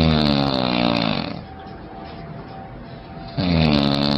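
A person snoring loudly in long, droning snores with a clear pitch: one snore slowly falls in pitch and fades out about a second in, and the next one starts loud near the end.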